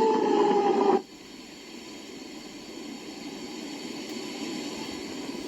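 A whistling tone, sagging slightly in pitch, cuts off abruptly about a second in. After it comes a steady hiss that slowly grows louder.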